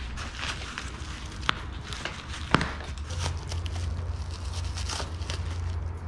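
Packing material rustling and crinkling as it is handled and pulled off a new mountain bike, with two sharp clicks about one and a half and two and a half seconds in. A steady low hum joins about three seconds in.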